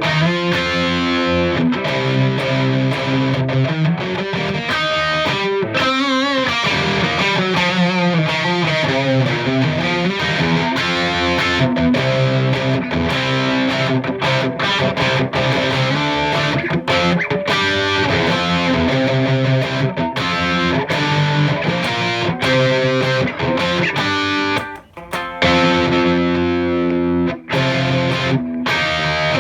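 Distorted electric guitar played through a Marshall JVM210 combo's overdrive channel, on the partscaster Strat's bridge hot-blade humbucker in full humbucking mode: chords and riffs, with two brief breaks near the end.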